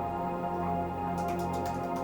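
Soft new-age ambient music of steady sustained tones, joined a little past halfway by a quick run of light keyboard typing clicks.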